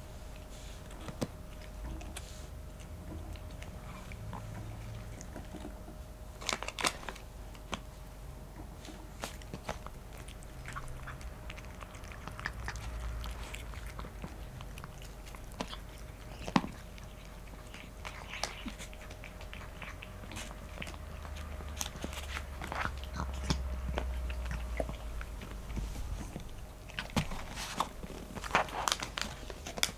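A kitten and a cat chewing and crunching snacks from ceramic bowls: irregular small crunches, bunched more thickly near the end.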